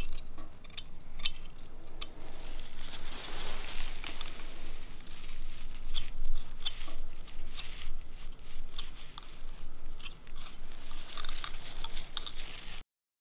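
Gory sound effect of teeth being wrenched out of a mouth: wet crunching and squelching with many sharp cracks and clicks. It cuts off abruptly near the end.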